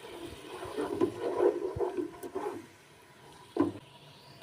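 Chicken cooking in a pan of soy and chili sauce with a little water: irregular wet bubbling and liquid sounds for the first few seconds, then a single short knock about three and a half seconds in.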